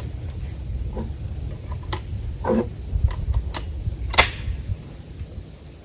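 Light scattered knocks and clicks of targets being handled and set back up, over a steady low rumble. The sharpest click comes about four seconds in.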